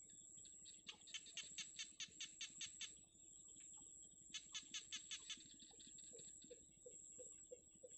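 Nestling birds giving two quick bursts of high peeping calls, about seven notes a second, then a slower run of softer, lower notes near the end. A steady high-pitched whine runs underneath throughout.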